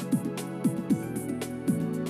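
Background music: sustained chords over a steady drum beat of about two hits a second.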